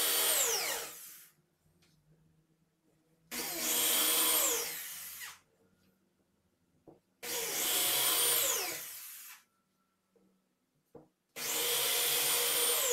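Corded electric drill boring countersunk holes into a melamine panel. One run ends about a second in, then the drill starts three more times for about two seconds each, each run closing with a falling whine as the motor winds down.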